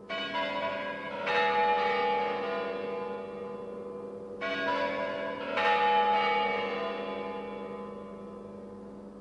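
A deep bell struck four times, in two pairs about a second apart, each stroke ringing on and dying away slowly over a steady low hum.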